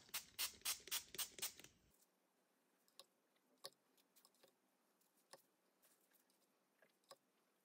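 A small pump spray bottle spritzing water onto paper edges, about seven quick squirts in rapid succession over the first two seconds, then near silence with a few faint taps.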